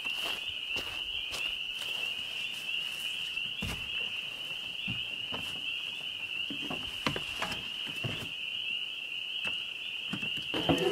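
A steady, high-pitched chorus of frogs calling together, with scattered light clicks and knocks.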